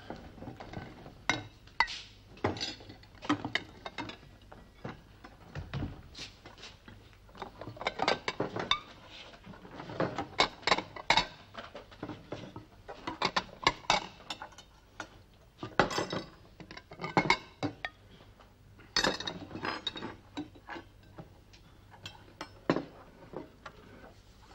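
Spoons clinking against china porridge bowls and plates, with mugs set down, as several people eat at a table; sharp, irregular clinks throughout.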